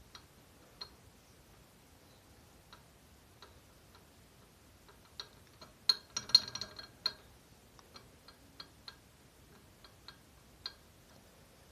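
Sparse light metallic clicks, with a short burst of them about six seconds in, as the connecting rod of a stripped 170F single-cylinder engine is rocked by hand on its crankpin. The rod has about half a millimetre of up-and-down play on a worn crankpin journal, the cause of the engine's knock.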